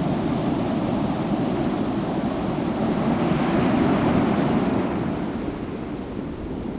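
Sea waves washing on the shore, a steady rush that swells about halfway through and then eases off as the wave recedes.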